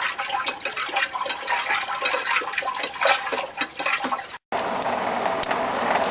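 Red-hot steel poker tip quenched in water, sizzling and bubbling with an irregular crackle. After a sudden cut about four seconds in, a steady rushing hiss.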